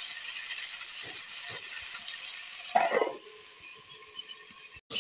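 Chicken and onion masala sizzling in a clay pot, with a few light scrapes of a ladle, then a steel plate clanks down on the pot as a lid about three seconds in, ringing briefly; after that the sizzle is quieter under the lid.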